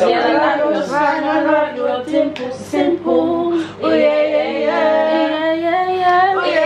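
Music: a woman singing a melodic line with long held notes.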